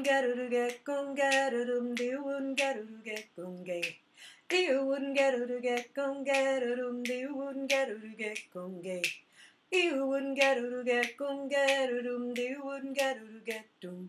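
A woman singing a wordless improvised vocal phrase three times over, with sharp clicks among the notes.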